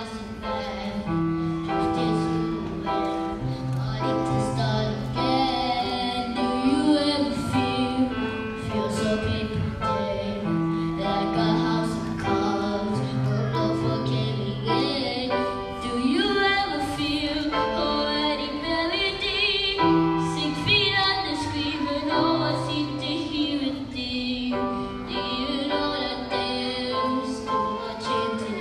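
Music: a song with a singing voice over instrumental accompaniment, with long held notes.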